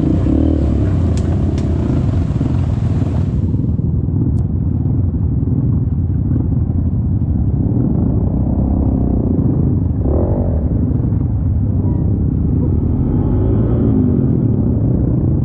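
Dirt bike engine running at low revs while riding a muddy trail, with a heavy low rumble and the engine pitch rising and falling a few times. A hiss stops about three seconds in.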